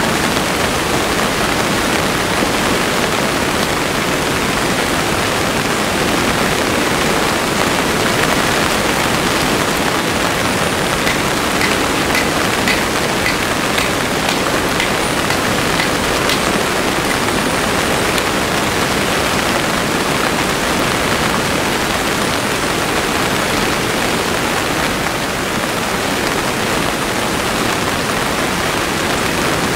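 Heavy rain falling steadily, an even hiss. About midway through, a short run of light knocks as firewood is handled and set in a fire stand.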